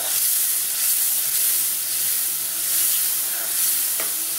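Spice paste of tomato, cashew, ginger and green chilli sizzling in hot oil in a metal kadhai as it is stirred with a metal spoon, a steady hiss, with one sharp click about four seconds in.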